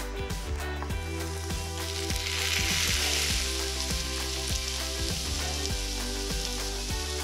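Sliced onions and diced tomatoes sizzling in hot oil in a frying pan as they are stirred with a spatula. The sizzle comes in about two seconds in, is loudest for the next second or so, then settles. Background music with a steady beat plays underneath.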